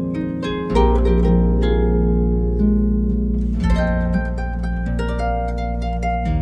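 Background music: plucked, harp-like notes over held low bass notes.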